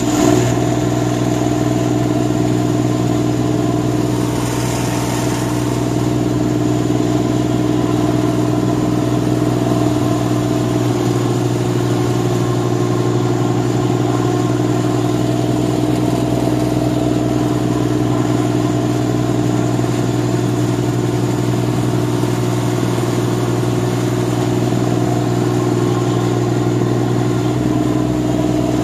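A rice combine harvester's engine running steadily at a constant speed, with an even, unchanging hum.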